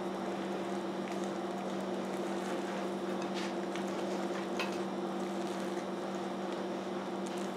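A steady, even electrical hum from a kitchen appliance, with soft scrapes and faint clicks of a spatula stirring thick banana bread batter in a glass bowl.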